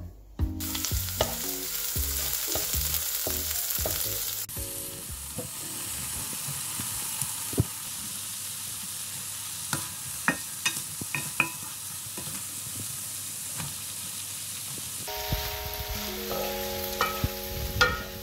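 Meatballs and chopped vegetables sizzling in hot oil in a wok as they are stir-fried. A wooden spatula knocks and scrapes against the pan several times around the middle.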